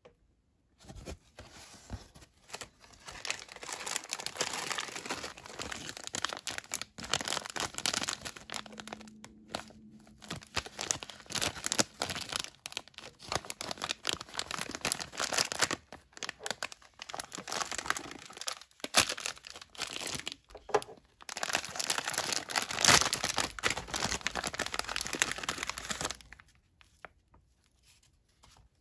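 Clear plastic MRE accessory packet being handled and torn open by hand: dense crinkling and rustling of the plastic wrapper, stopping a couple of seconds before the end.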